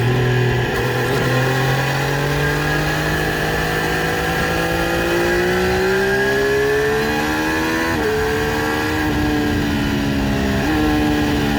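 Triumph Street Triple RS 765 cc inline three-cylinder engine running through its stock exhaust while riding. The engine note climbs and eases in pitch, with sudden steps in pitch about eight seconds in and again near eleven seconds, as the bike changes gear.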